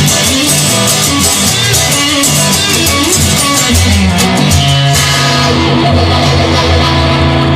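Blues guitar music with no singing. It is strummed and picked for about five seconds, then a held chord rings out.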